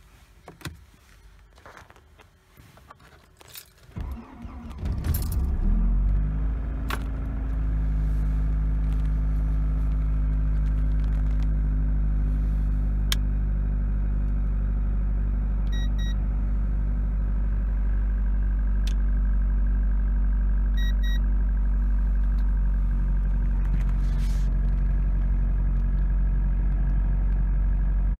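Opel Omega B's X20XEV 2.0-litre 16-valve four-cylinder engine cold-started in hard frost, heard from inside the car: a few clicks, then about four seconds in the starter turns it over, it catches and flares briefly, and it settles into a steady fast cold idle just under 2,000 rpm.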